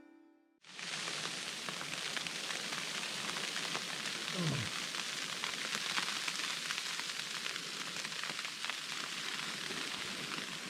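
Snow falling on a tent or tarp: a steady fine hiss of many tiny ticks, starting about half a second in. A short falling tone is heard about halfway through.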